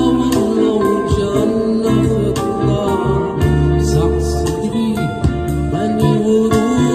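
Live Gulf Arabic song played by a small band: drums keeping a beat under keyboard lines, with a man singing into a microphone.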